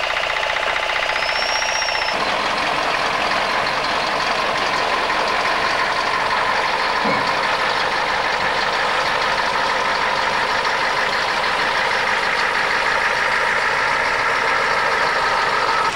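Scania 143 heavy-haulage tractor unit's V8 diesel running steadily at low speed, with a whining note held over the engine.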